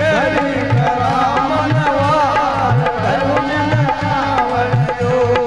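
Rajasthani folk bhajan music: a harmonium holds steady tones under a wavering melody, over a dholak beat whose bass strokes slide up in pitch, about two strokes a second.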